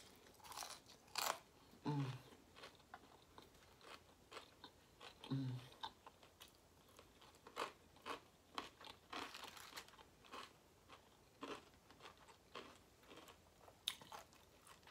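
Close-up chewing and biting of crisp fried food, with irregular crunches every second or so.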